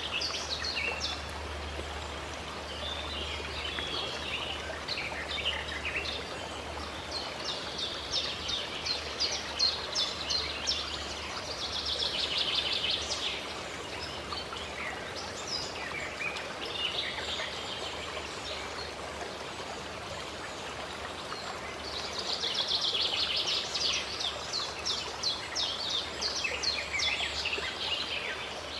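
Steady running water, with small birds chirping and twittering in quick bouts that come and go several times.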